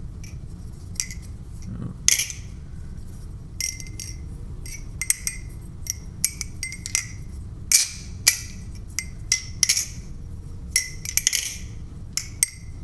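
LDY Sirius V3 balisong trainer being flipped: its metal handles clack against the blade and each other in irregular sharp metallic clicks, sometimes in quick runs.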